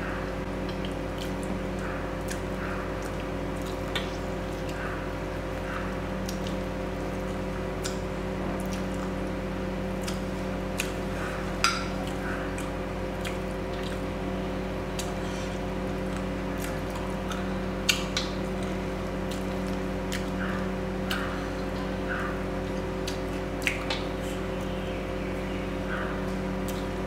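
Close-miked wet chewing and mouth sounds of someone eating mutton curry with rice, with soft squelches every second or so and a few sharp clicks, over a steady hum.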